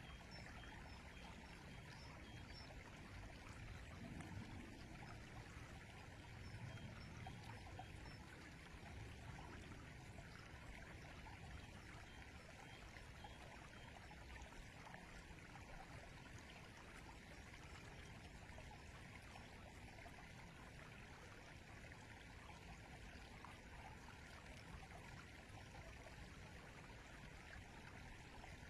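A river flowing steadily, heard faintly.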